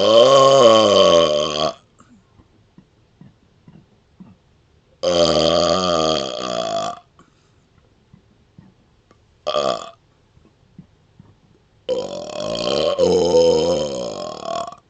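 A man's burps, brought up from swallowed air: four loud burps, three long ones of about two to three seconds each and a short one in between, their pitch wavering. Faint clicks sound in the quiet gaps between them.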